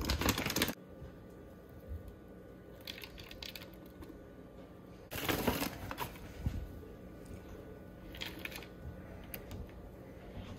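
Frozen blueberries shaken from a plastic pouch into a plastic blender cup: a few short bursts of clicking rattles, the loudest about five seconds in.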